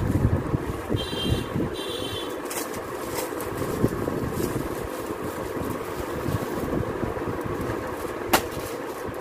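Plastic-wrapped suit fabrics crinkling and rustling as they are handled and unpacked, over a steady background hum, with a sharp crackle of plastic near the end.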